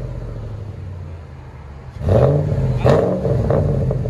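1998 Ford F-150 V8 running through shorty headers and a Y-pipe into straight-piped duals with quad tips: idling, then from about two seconds in, three quick throttle blips, each rising and falling in pitch.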